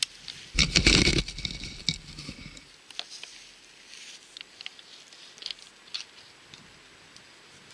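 Rustling and scraping handling noise close to the microphone for about two seconds while the camera is moved, followed by scattered light ticks and crackles.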